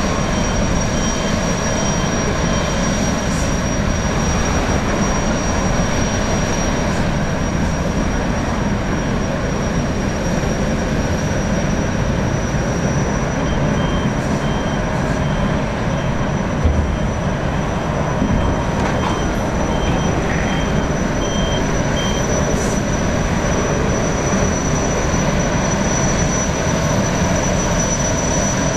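Jetfoil's gas turbines running as the boat manoeuvres off the quay: a steady rumble with a constant high-pitched whine. Runs of short, faint beeps come in near the start and again around the middle.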